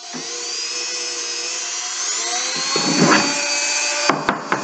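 A small electric power tool running at a steady whine on the hammer, its pitch edging up about two seconds in. A rougher grinding contact comes about three seconds in, and a few sharp knocks follow near the end.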